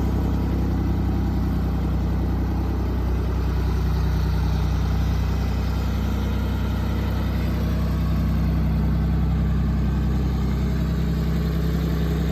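1979 Ford 340 industrial tractor engine running steadily at an even speed.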